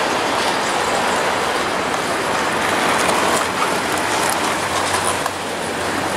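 Double-stack intermodal freight train cars rolling past at close range: a steady rush of steel wheels on rail with short, high-pitched squeaks. A low steady hum comes in near the end.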